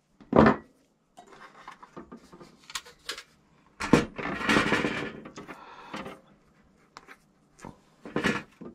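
Knocks, clicks and rustling of an old 2D fluorescent light fitting being taken apart by hand: the steel gear tray and plastic base are handled and set down, and loose wires are moved. The sharpest knocks come about half a second in, just before four seconds with scraping after it, and again near the end.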